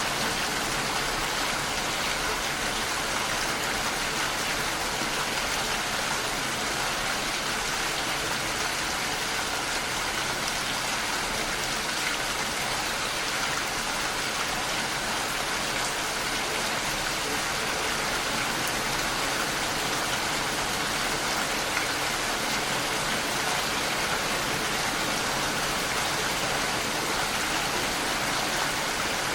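Steady, even rain falling, a continuous hiss without distinct drops or thunder.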